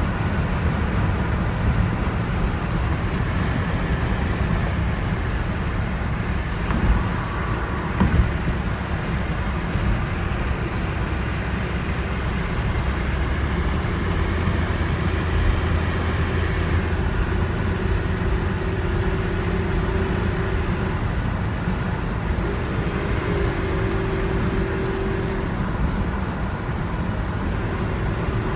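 Car driving on the road, heard from inside the cabin: steady engine and tyre rumble, with two brief knocks about seven and eight seconds in and a faint hum that comes and goes in the second half.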